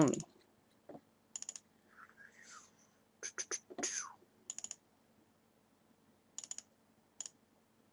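Clicking at a computer: several short clusters of sharp clicks, a few seconds apart, like mouse double-clicks.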